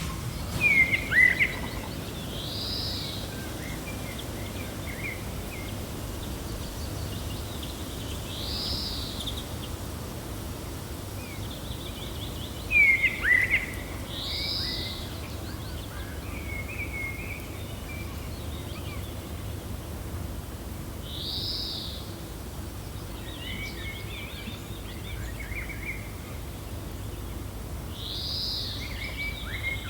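Birds chirping over a steady low wind: one bird repeats a short arched call about every six seconds, with two louder sharp falling chirps, about a second in and near the middle, and small twitters between.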